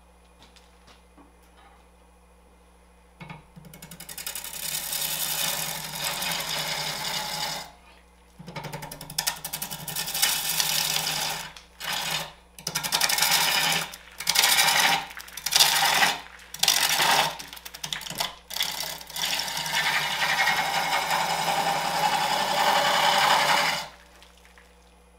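Large bedan slicing wood off a branch spinning on a wood lathe: a steady hiss of the cut that starts about three seconds in. It runs in a long pass, then a quick series of short cuts, then another long pass, and stops about a second before the end.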